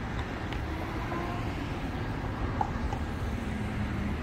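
Outdoor urban background noise: a steady low rumble with no distinct events.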